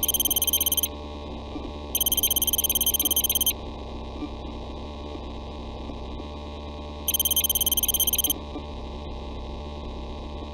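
Electronic emergency-alert tones: three bursts of high, rapidly pulsing beeping, each a little over a second long, the last after a longer gap. Under them runs a steady low synthesized drone.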